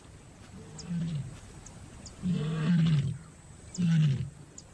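A lioness in heat calling to males with a series of deep, moaning roar-grunts. There are three, each falling in pitch and spaced about a second and a half apart, the first fainter than the other two.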